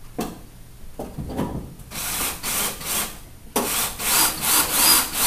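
A drill driver runs in two stretches with a brief break, driving a screw into a pickup truck bed to fasten a lock bracket. Its motor whine rises and falls as the screw seats. A couple of soft knocks come before it.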